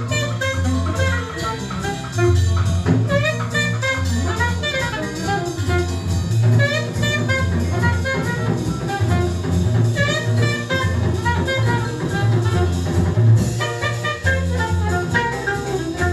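Jazz playing from a vinyl record on a McIntosh MTI100 integrated turntable through B&W 804 floor-standing speakers, heard in the room, with a moving bass line under horn-like melody notes.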